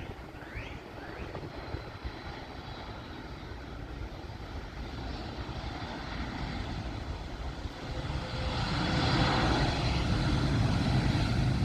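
Jet airliner's engines running, a steady rumble with a faint whine that builds and grows clearly louder about eight seconds in.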